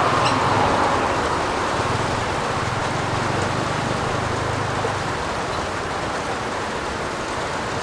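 Steady heavy rain falling on a roof, a continuous even patter that eases slightly in loudness over the first couple of seconds.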